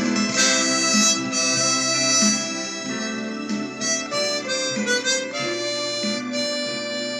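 Tombo Unichromatic chromatic harmonica playing a melody in held notes over a steady instrumental accompaniment.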